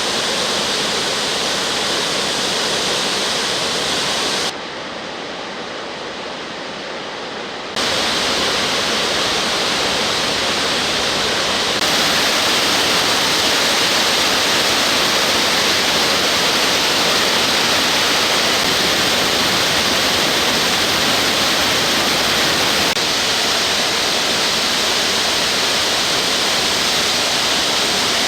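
The Gasteiner Wasserfall, a large mountain waterfall, rushing steadily with a dense hiss of falling water. The sound drops suddenly to a quieter, duller rush about four seconds in, comes back after about three seconds, and grows a little louder about twelve seconds in.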